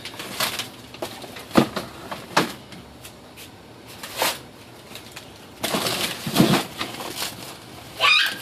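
Bags of frozen food being stacked back into a chest freezer: a few hard thuds as frozen packages go in, and a longer stretch of plastic bags rustling. A brief high chirp sounds near the end.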